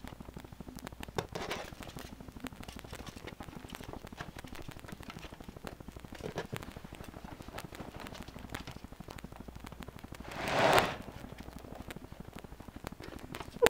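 Ferret doing a weasel war dance: quick light clicks and scrabbling of its paws and claws on the floor and on clothes, with a louder rustle lasting about a second near ten seconds in.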